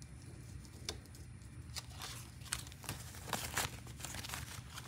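Paper banknotes and a frosted plastic zip envelope being handled: bills slid out and leafed through, making soft, irregular rustles and crinkles with a few sharper clicks.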